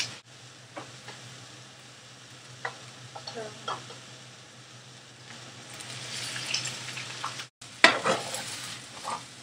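Cooked white rice sizzling in hot olive oil in a frying pan as it is poured in and stirred with a wooden spoon, with a few light knocks against the pan. The sizzle grows louder about six seconds in and cuts out for a moment shortly after, over a low steady hum.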